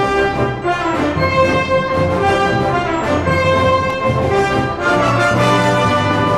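Orchestral music with prominent brass, sustained chords moving from note to note.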